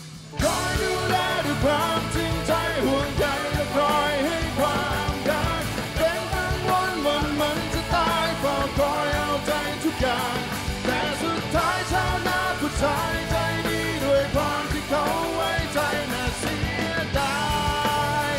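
Live rock band with electric guitars and drums playing a Thai pop-rock ballad while a male lead singer sings over it. The sound drops out briefly at the very start, then the full band and voice come back in.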